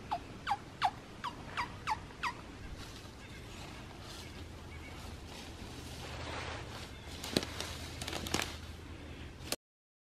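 A quick run of about seven sharp animal calls, each falling steeply in pitch, then faint rustling with a few sharp snaps. The sound cuts off abruptly near the end.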